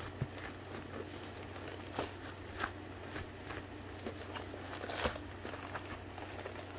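Light handling of a diamond painting kit and its packaging: scattered soft clicks and taps, the clearest about a quarter second in and around two and five seconds, over a steady low hum.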